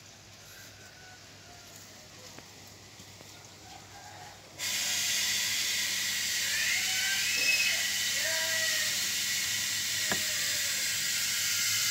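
Drum filter's backwash spray switches on about four and a half seconds in: a sudden, steady hiss of water jets spraying the drum screen, with a faint low hum underneath.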